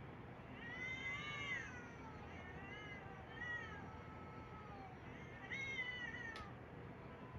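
A cat meowing: four drawn-out meows that rise and fall in pitch, the longest about a second in, with a short sharp click just after the last one.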